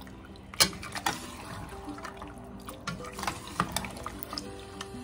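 A metal spoon stirring thick mutton and spice masala in a stainless-steel pressure cooker, frying it down. The stirring gives a wet, sizzling sound, with sharp clinks of the spoon on the pot: a loud one just after the start and several more in the second half.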